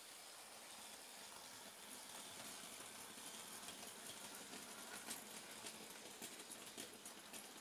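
Faint sound of an OO gauge Bachmann Class 20 model train running past on its track: a low hiss, with light clicking of the wagon wheels over rail joints and points from about two seconds in, growing more frequent.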